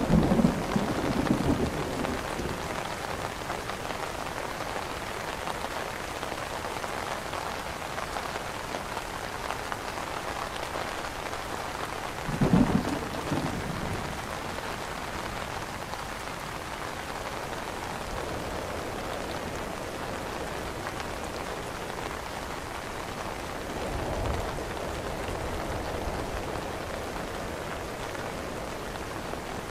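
Steady rain falling on an umbrella canopy. Short low rumbles come in at the start, again about halfway through, and more faintly near the end.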